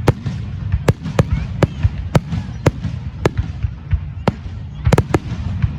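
Fireworks display: a string of sharp bangs from bursting shells, roughly two a second at uneven spacing, over a steady low rumble.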